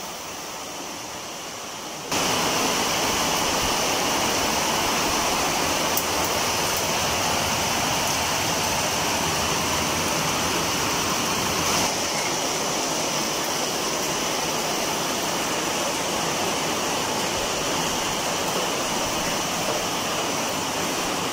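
Rice batter sizzling in a hot pan on a wood-fired stove as a soru chakli crepe cooks: a steady hiss that starts suddenly about two seconds in.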